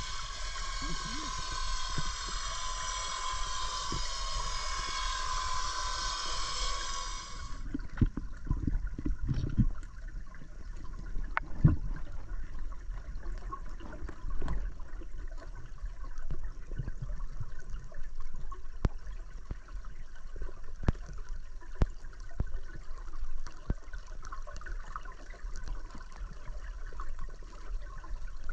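Underwater sound picked up by a GoPro camera in its housing: a muffled watery wash with scattered clicks and knocks. A high, many-toned whine runs for the first several seconds and cuts off suddenly.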